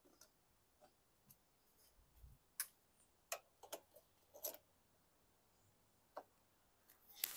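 Faint, irregular metal clicks of a small ratchet and socket turning the nuts that hold the mower's plastic fuel tank on its studs.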